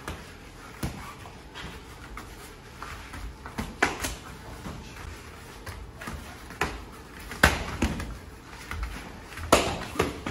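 Boxing gloves landing punches in sparring: irregular smacks and thuds, sometimes two or three close together, the loudest about seven and a half and nine and a half seconds in.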